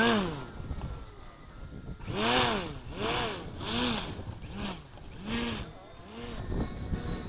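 A small air compressor pumping in short strokes, each a rising-then-falling whine with a hiss of air, about eight times at an uneven pace. The owner says the compressor has a leak.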